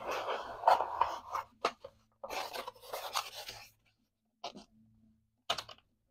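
A large sheet of paper rustling and rubbing against a wall as it is handled and smoothed by hand. There are two longer stretches of rustling, then two short scrapes near the end.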